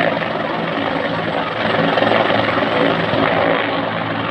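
Helicopter running on the ground with its main rotor turning: a loud, steady engine and rotor sound.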